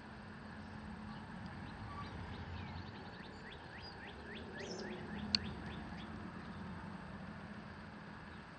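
A bird chirping a quick run of short falling notes for a couple of seconds midway, over a faint steady hum, with one sharp click just after the chirps.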